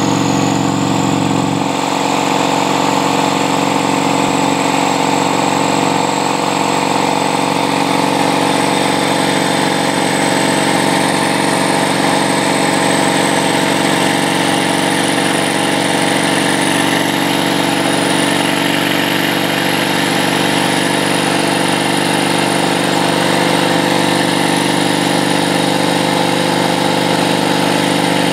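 Turbocharged Yamaha Roadliner V-twin running steadily at highway cruising speed, with a thin high whine above the engine note.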